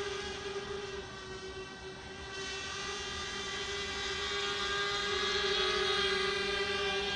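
Electric motors and propellers of a small FPV multicopter in flight, a steady high buzzing whine that fades a little about a second in and then grows louder again as the craft comes closer.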